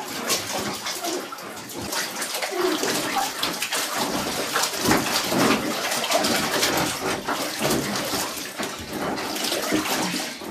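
Water sloshing and splashing in a full bathtub as a person in snorkel gear moves while lying submerged in it.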